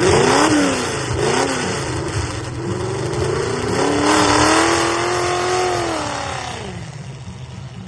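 350 small-block Chevy V8 revving: two quick blips, then a full-throttle run of about four seconds whose pitch climbs, holds and then drops away, fading as the truck moves off.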